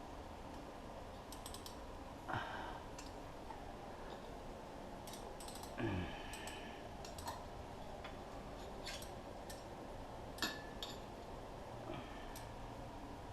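Light scattered clicks and a few small knocks of metal parts being handled and lined up as a part is slid onto a race-car axle.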